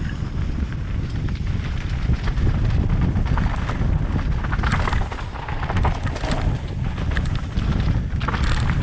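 Wind buffeting a helmet-mounted camera's microphone during a fast mountain bike descent on dry dirt singletrack, a steady low rumble, with the tyres on the dirt and the bike clattering over bumps in many short clicks and knocks.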